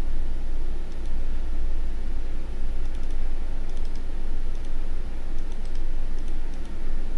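Scattered light clicks of a computer mouse and keyboard in small clusters, over a steady low rumble.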